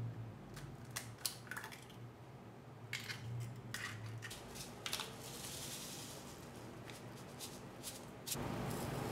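Eggs cracked against the rim of a glass measuring jug: a scatter of sharp taps and shell cracks, then a brief dry rustle as dashi powder is shaken from its sachet. A steady low hum comes up near the end.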